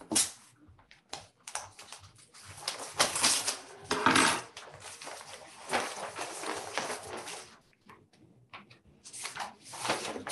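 Paper rustling and crinkling in irregular bursts as a sealed bid envelope is handled and torn open, the papers inside shuffled.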